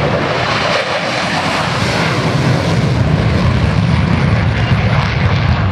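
F-16 fighter jet's single jet engine at takeoff power as the aircraft climbs away: a loud, steady rushing noise that grows slightly louder over the seconds.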